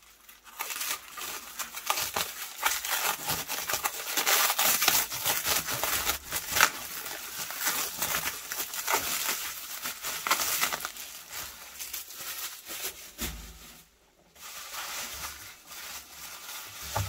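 Clear plastic stretch film and bubble wrap crinkling and crackling as they are pulled and unwrapped by hand. The crackle breaks off for a moment about fourteen seconds in, then carries on more quietly.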